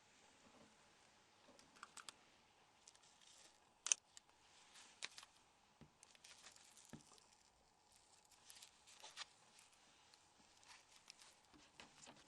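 Faint, scattered clicks and light scratching from small phone parts and tools being handled during disassembly, with one sharper click about four seconds in.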